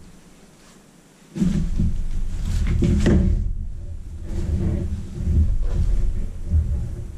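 A large fabric rod tote bag being unfolded and handled on a table: rustling and rubbing cloth with dull bumps and scrapes, starting about a second in.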